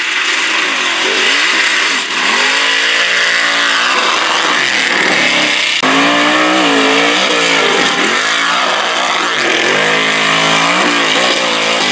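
Engines of lifted mud-racing pickup trucks revving hard through a mud pit, the pitch swinging up and down again and again as the tyres spin and bite. The sound jumps abruptly twice.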